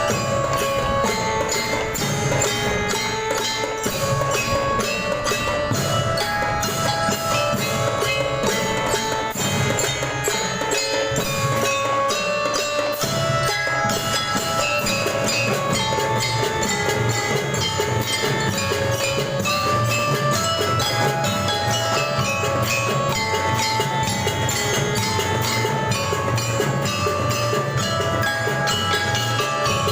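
School marching band playing: a glockenspiel (bellyra) melody of short ringing notes over a steady beat of marching drums.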